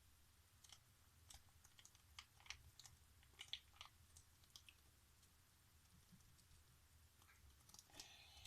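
Near silence with faint, scattered small clicks and sticky ticks from hands and a spoon working a bowl of homemade slime mixture, with a short cluster of them near the end.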